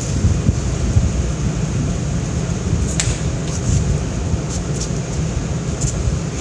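Outdoor city street background: a steady low rumble with a light hiss, and a faint click about three seconds in.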